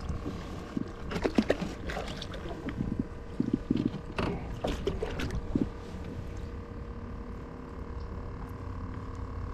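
Water splashing and sharp knocks against a small boat's hull as a hooked black drum is fought alongside and lifted aboard, most of the knocks coming in the first six seconds. A steady hum runs underneath.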